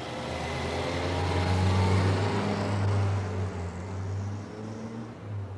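A car driving past, its engine hum and tyre noise swelling to a peak about two seconds in and then fading as it moves away.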